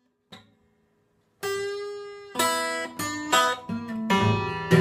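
Steel-string acoustic guitar played by hand: after a faint tap, a short phrase of five or six picked notes and chords starting about a second and a half in, each left to ring and die away.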